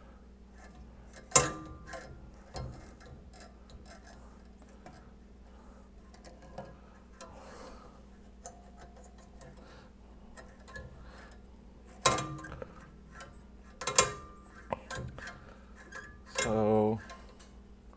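Steel bandsaw blade being worked by hand onto the rubber-tired wheels of a 9-inch Delta bandsaw: light metallic ticks and rattles, with a few sharp clanks about a second and a half in and again around twelve and fourteen seconds in.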